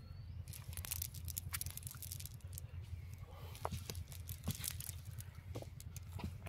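Rustling and scattered small clicks from a cast net being handled on the ground, its mesh and weighted edge shifted by hand while fish are picked out, over a steady low rumble.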